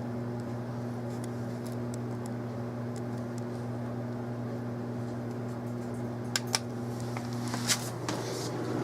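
Steady electrical hum with a low pitched drone, joined by a few light clicks about six to eight seconds in.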